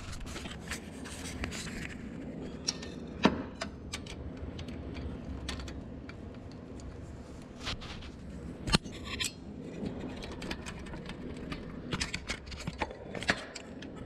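Metal tools scraping and rubbing as a cylinder head bolt is slowly turned loose with a socket and extension, with scattered metallic clicks and two sharper clicks about 3 and 9 seconds in.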